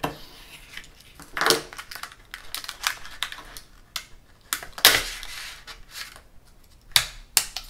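Stiff clear plastic packaging crinkling and crackling as it is handled and pulled apart along a fresh cut. A run of irregular small clicks is broken by a few louder crackles, at about one and a half seconds, five seconds and seven seconds in.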